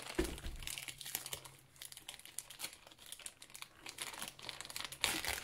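Bubble wrap and a plastic bag crinkling and rustling in short bursts as taped bottles are unwrapped by hand, with a louder rustle near the end.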